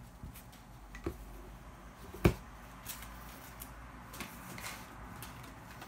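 Hard objects being handled and set down: a few light clicks, then one sharp knock about two seconds in, and small taps after it.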